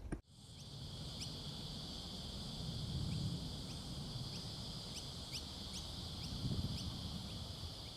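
Forest ambience: a steady high insect drone runs throughout, with short rising bird chirps repeating about every half second to a second through the first part, over a low rumble of wind.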